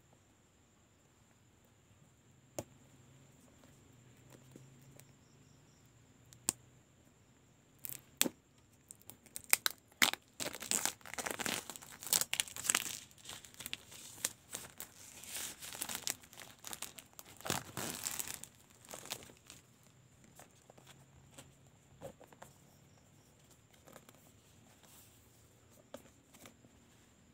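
Plastic shrink wrap being torn and crinkled off a phone box: a few separate clicks at first, then about ten seconds of dense crinkling and tearing in the middle, tailing off into occasional rustles.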